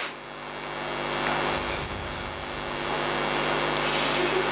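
A steady, noisy drone with a low hum running under it, from the soundtrack of a film-clip montage played over loudspeakers. It grows a little louder over the first second or so.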